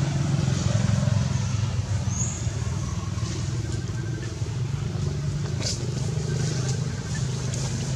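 Steady low hum of an engine running nearby, with a short high chirp about two seconds in and a brief click near the six-second mark.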